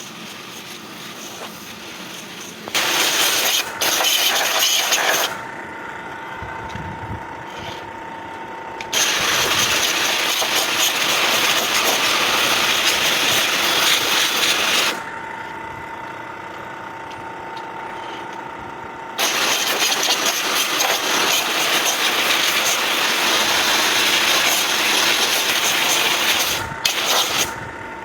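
Pressure washer flushing the blower of a standing-unit air conditioner: three loud spells of spraying hiss, the longest about six to seven seconds. Between the spells the machine keeps running with a quieter steady hum and a faint whine.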